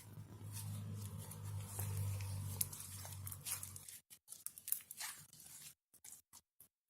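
Clear slime mixed with fruit beads being squished and poked, giving sticky clicks and crackles. A low steady hum sits under the first four seconds, then stops.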